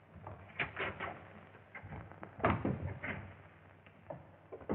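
Clattering wooden knocks and scrapes as a crate is handled, in a few clusters about half a second, two and a half seconds and near the end, the loudest about two and a half seconds in, over the hiss of an old film soundtrack.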